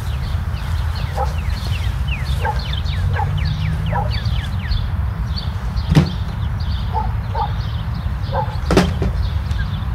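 Garden ambience of birds chirping, with a quick run of descending whistled notes about two to four seconds in, over a steady low rumble. Two sharp knocks sound, about six seconds in and near the end.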